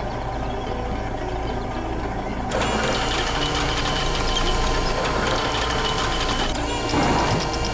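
Heavy construction vehicle engine running steadily, growing louder and brighter about two and a half seconds in.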